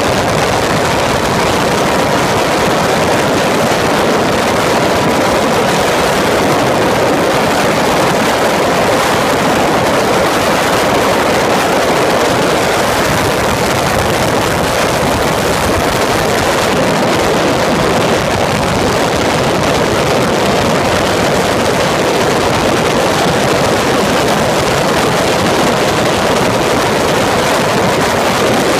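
Onboard sound of a Peugeot racing prototype at speed on track: the engine running hard under heavy wind rushing over the microphone, a loud, steady, dense noise with no breaks.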